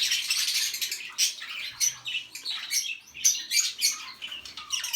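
Budgerigars chirping and chattering rapidly, a dense run of harsh, high calls with short gaps between them.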